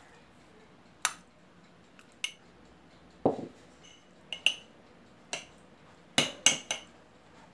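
Metal utensil clinking against glass baking cups and a ceramic plate as food is portioned out: scattered sharp clinks, several close together near the end, with one duller knock about three seconds in.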